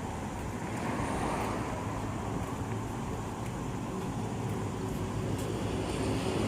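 Steady city traffic noise, a continuous rumble of passing road vehicles.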